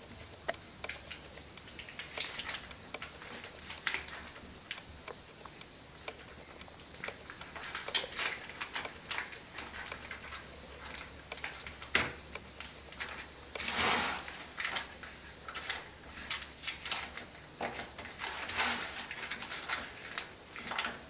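Hands working the pastry around the rim of a pie dish on a wooden board: a scatter of small clicks and taps, sparse at first and denser in the second half, with a brief louder rustle about fourteen seconds in.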